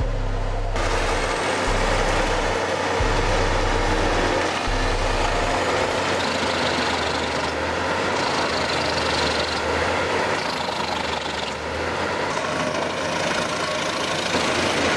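Large mobile wood chipper running under load: a steady, dense mechanical din of engine and chipping that fills in about a second in.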